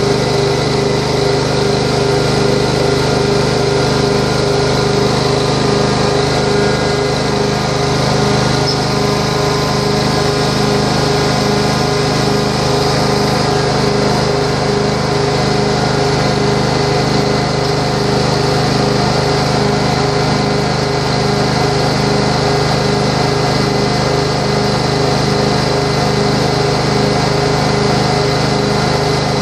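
Prochem Legend SE truckmount carpet cleaning machine running steadily at working heat and pressure: its 22 hp engine driving the Sutorbilt vacuum blower and Cat high-pressure pump, a constant machine drone with a steady whine over an even pulsing throb.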